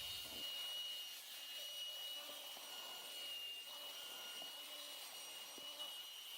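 Motor-driven wire brush running faintly with a steady high whine and a hiss, stripping paint from a cast-iron vise part.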